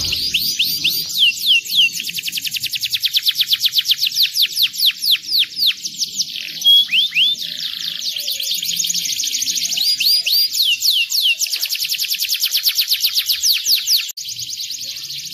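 Domestic canary singing a long song of fast trills: runs of rapid, down-sweeping high notes, now quicker, now slower, with hardly a pause.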